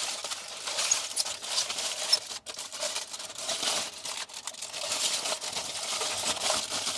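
Aluminium foil liner being pulled out of a barbecue tray and scrunched up by hand: continuous crinkling with many sharp little crackles.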